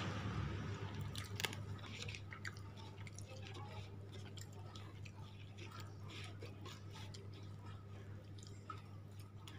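Close-up eating sounds: a person chewing a mouthful of rice, with small crackles of the paper food wrapper as fingers gather the food, over a steady low hum. A sharper click sounds about a second and a half in.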